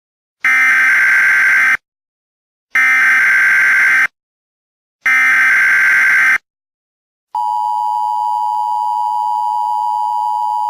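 Emergency Alert System signals: three identical SAME header data bursts, each just over a second long with about a second between them, then the steady two-tone EAS attention signal starting about seven seconds in. Together they mark the start of a new emergency alert.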